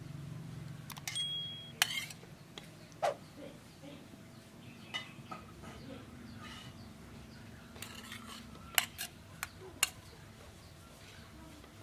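Scattered clinks and knocks of utensils and dishes, a dozen or so irregular sharp taps, over a low steady background hum.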